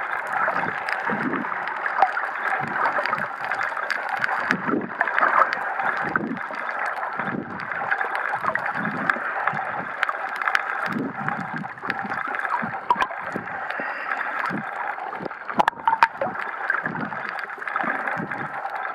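Muffled water noise picked up by a camera held just under the sea surface while snorkelling: steady gurgling and sloshing, with a low whoosh recurring about every second or so.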